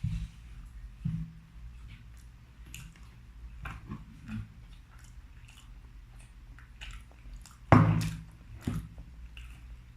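Close-miked chewing and soft wet mouth sounds from eating cheese-topped french fries, scattered small clicks and smacks. There is a louder thump-like mouth noise about eight seconds in and a smaller one a second later.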